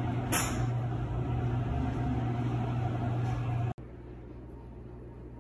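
Steady low hum of a running kitchen appliance, with a brief rustle about a third of a second in. About three-quarters of the way through the hum cuts off abruptly, leaving a fainter steady background noise.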